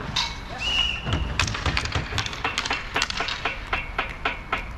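Rapid, irregular clacks and taps of roller hockey sticks, puck and skates during play, several a second, with a brief high tone about two-thirds of a second in.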